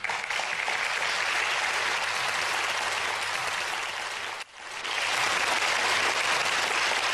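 Studio audience applauding, with a sudden brief break about four and a half seconds in before the applause resumes.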